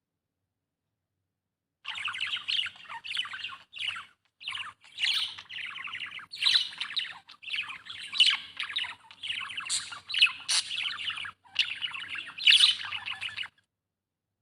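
Budgerigar chirping and chattering in a rapid, continuous warble with short breaks, starting about two seconds in and cutting off suddenly near the end.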